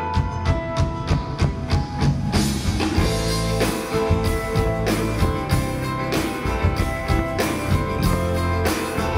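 Live rock band playing an instrumental passage with no singing: drum kit keeping a steady beat under electric guitars and bass guitar. The cymbals grow fuller about two seconds in.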